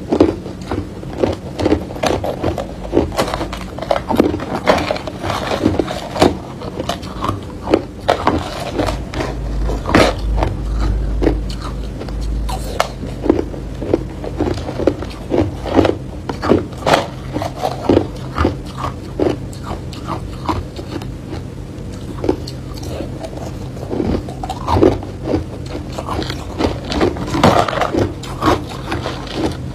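Hard clear ice being bitten and crunched between the teeth: a fast, irregular run of crisp cracks, mixed with a metal spoon scraping and knocking against ice chunks in a bowl. A low rumble comes in about ten seconds in and lasts a few seconds.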